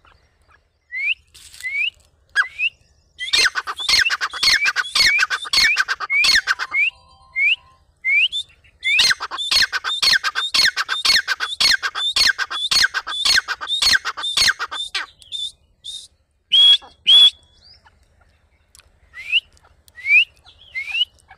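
Grey francolin calling: a few short rising notes build into a loud, fast run of repeated calls, about three a second. The calling pauses for a moment and starts again, then eases back to scattered single rising notes.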